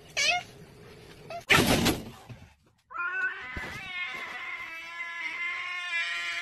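A cat meowing in short calls, the loudest about a second and a half in. About three seconds in, a cat lets out one long, unbroken yowl held for several seconds without pausing for breath, an angry cry.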